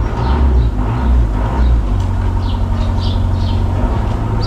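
A motor vehicle's engine running close by as a deep, steady low rumble, with a steadier hum setting in about two seconds in. Short high chirps sound above it.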